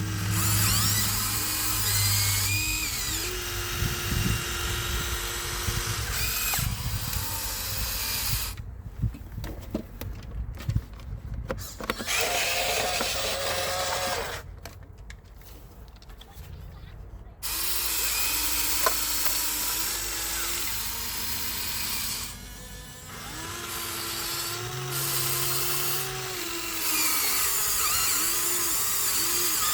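Huina 1593 RC excavator's small electric motors whining and shifting in pitch as the arm, boom and slew move, with scraping and knocking in sand about four to seven seconds in. The motors go much quieter for several seconds in the middle, then start whining again.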